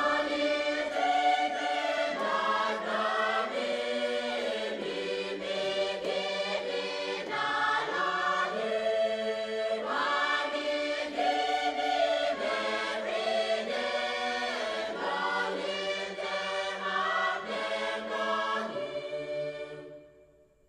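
Background music with a choir singing sustained chords, fading out near the end.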